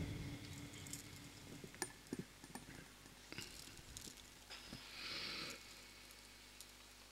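A pause in Quran recitation over a PA system: the reciter's last note fades out at the start, leaving faint room noise with scattered small clicks and a brief hiss about five seconds in.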